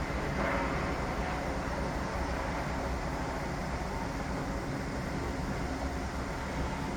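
Construction-site machinery running without a break: a continuous low rumble with a faint engine-like hum and no distinct impacts.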